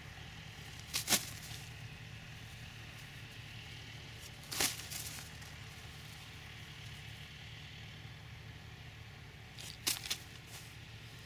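A rolled newspaper crinkling in a hand close by: three short crackling rustles, the first and last doubled, over a steady low hum.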